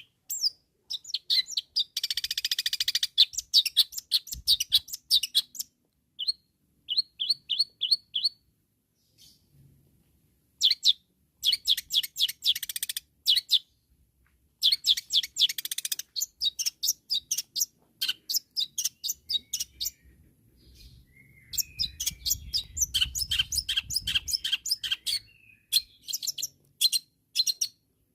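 Long-tailed shrike (cendet) singing hard: bursts of rapid, sharp, high-pitched chattering notes with harsh rattling stretches, broken by short pauses. This is the bird's loud challenging song aimed at rival shrikes.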